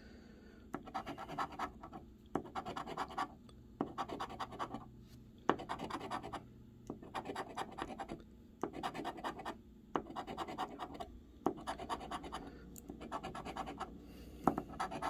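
Large metal coin scratching the coating off a scratch-off lottery ticket, in repeated short bouts of quick back-and-forth strokes with brief pauses between.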